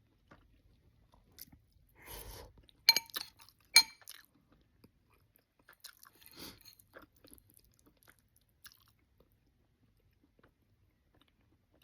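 Close-miked mouth noises of someone eating oxtails, cabbage and rice: chewing and smacking. The loudest moments are two sharp clicks about three and four seconds in, with quieter, scattered eating sounds around them.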